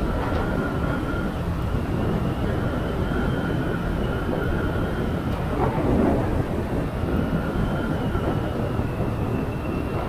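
Motorcycle ridden along a road: a steady rumble of engine and road noise with a faint steady whine.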